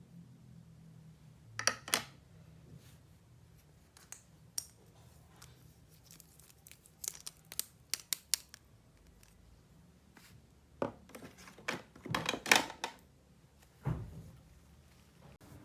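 Plastic toy pieces and packaging handled close to the microphone: scattered sharp clicks and taps with short crinkling, cutting or tearing sounds. The loudest cluster comes about twelve seconds in, followed by a low thump.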